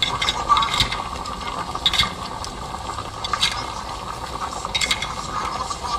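Trickling, splashing water with scattered clicks and rattles.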